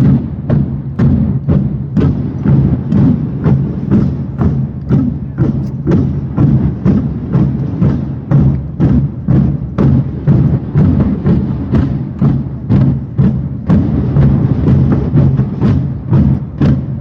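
Marching drums playing a slow, solemn funeral beat, about two strokes a second, with a low drum ring underneath.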